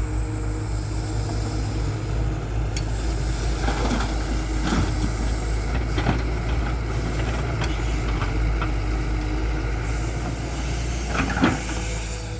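Tata Hitachi 210 excavator's diesel engine running steadily under work, with scattered knocks and clanks, the loudest a little before the end.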